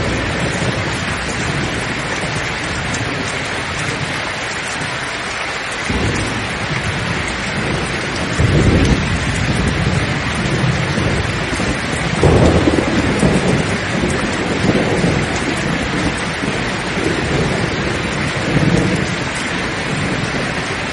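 Steady heavy rain hissing, with thunder rolling in about a quarter of the way through: two loud low rumbles, then smaller rumbles that die away near the end.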